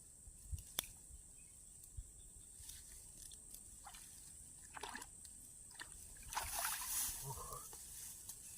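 Faint splashing and sloshing of water in a flooded rice paddy, loudest in a short burst about six to seven seconds in, over a steady high-pitched hiss.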